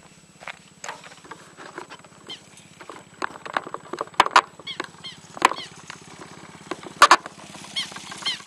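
Irregular knocks, taps and scrapes of a model glider's airframe being handled and picked up, heard through a camera mounted on it, over a faint steady hum. A few short, high, falling chirps come near the end.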